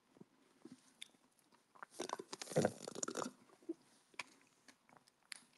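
Faint crunching and chewing close to the microphone, in a dense cluster about two to three seconds in, then a few scattered clicks.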